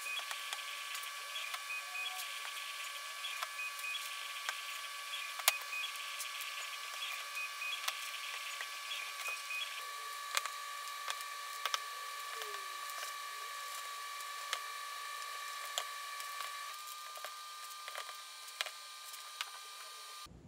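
Scattered sharp clicks and crackles of wired LED string lights being pushed through a drilled cardboard board and hot-glued in place, over a steady high-pitched whine.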